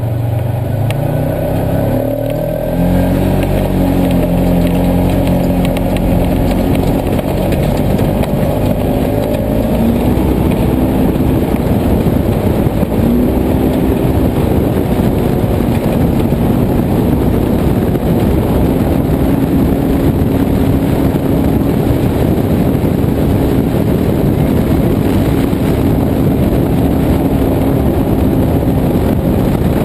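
Polaris RZR side-by-side's engine running under load as it drives over and up sand dunes. Its pitch rises about two to three seconds in and again about halfway through, then holds steady over a constant rushing noise.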